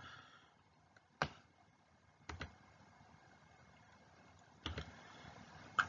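Quiet room with a few short, faint clicks spaced out over several seconds.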